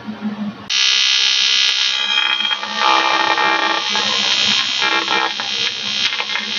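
AC TIG welding arc on 1-inch-thick 6061 aluminium from an Eastwood TIG 200 AC/DC welder. The arc comes up suddenly under a second in and then buzzes steadily and loudly, its tone shifting briefly twice.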